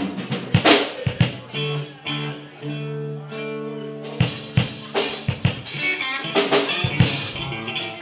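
Drum kit hits and a guitar played live without singing: scattered drum strikes, a guitar chord held from about one and a half to four seconds in, then more drum hits with guitar.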